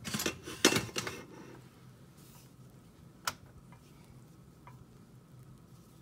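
Light clicks and knocks: a quick cluster in the first second and a half, then one sharp click about three seconds in, over a faint steady hum.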